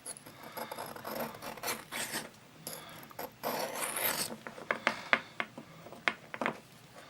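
Steel penknife blade scraping across a small wet whetstone in several sharpening strokes, followed by a run of short sharp clicks in the second half.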